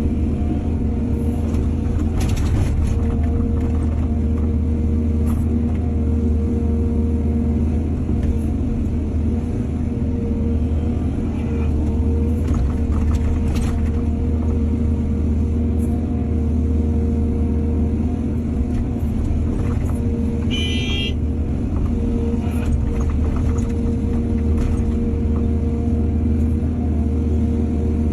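Heavy diesel engine of an excavator running steadily at working revs, with scattered knocks and clanks and a brief high squeal about two-thirds of the way through.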